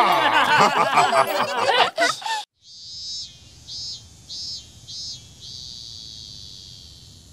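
Cartoon song with music and voices, cut off about two and a half seconds in. Then high-pitched insect chirping: one swell, four short chirps, and a long steady buzz that slowly fades.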